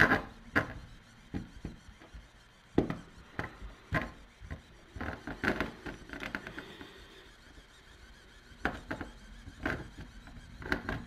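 A 3D pen's nozzle scraping and tapping on a ridged plastic mat as it lays filament into holes: irregular clicks and short scrapes, with a quieter pause about two-thirds of the way through.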